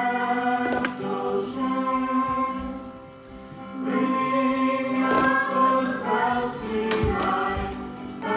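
A choir singing slow music with long held notes, easing off briefly about three seconds in, with a few faint clicks over it.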